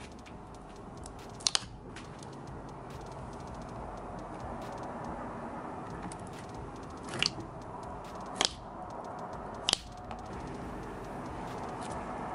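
Instant-snow jelly slime being pressed and pulled apart by hand, giving a few short sharp wet pops, a quick double one early and three more spaced a second or so apart past the middle, over a steady low hiss.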